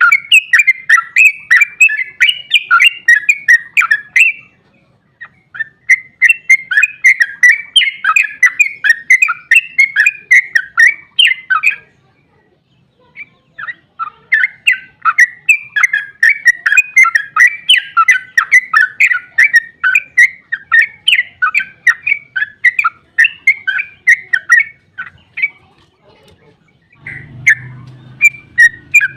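Yellow-vented bulbul (trucukan) singing its long 'ropel' song: fast runs of bubbling, chattering notes lasting several seconds each, broken by short pauses. A faint low hum comes in near the end.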